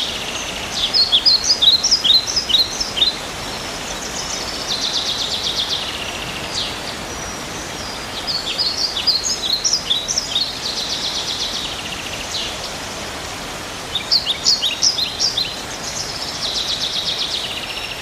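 Songbird singing over a steady background hiss: rapid trills about two seconds long alternate with quick clusters of sharp, separate notes, the phrases returning every few seconds.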